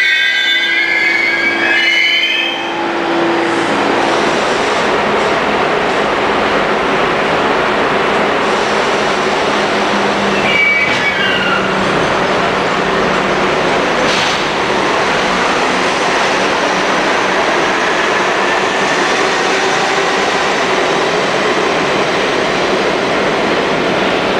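Budd-built R32 subway train running past the platform and out of the station, a steady loud noise of wheels and motors. Wheels squeal high-pitched over the first couple of seconds and again briefly, falling in pitch, about ten seconds in.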